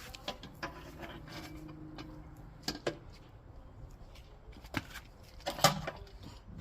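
Scattered metallic knocks and clanks as a motorcycle is tilted over and a paddock stand is fitted under it, with the sharpest knock about five and a half seconds in.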